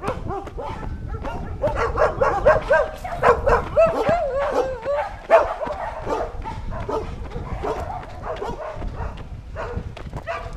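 Dog barking and yelping in quick runs of short barks, loudest from about one and a half to five and a half seconds in, then sparser, over a steady low rumble.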